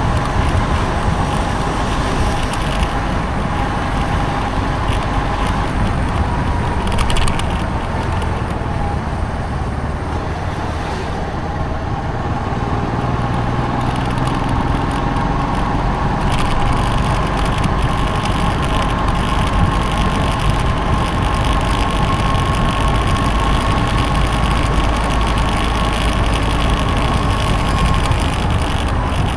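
Motorcycle engine running steadily while riding, over a constant rush of noise, with a faint whine that drifts slightly in pitch.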